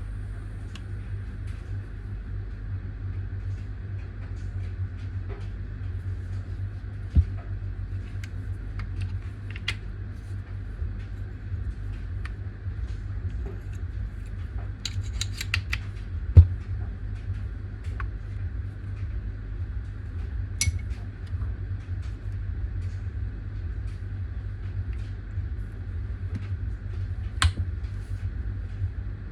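A steady low hum with scattered light clicks and taps, a quick run of clicks a little past halfway, and a sharp knock just after it.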